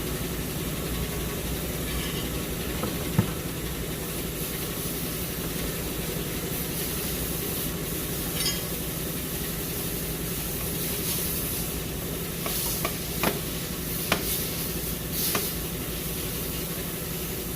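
A few light clicks and knocks of a replacement CV axle being spun and pushed into the transmission to find the groove and seat its splines, over a steady mechanical hum.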